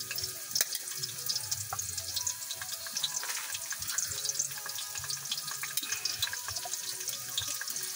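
Onions frying in hot oil in a wok, a steady sizzle with fine crackles.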